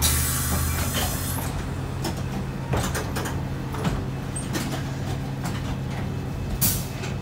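Isuzu Erga city bus idling with a steady low hum, a hiss of compressed air in the first second from its pneumatic doors, followed by several clicks and knocks of the door mechanism. Another short air hiss comes near the end.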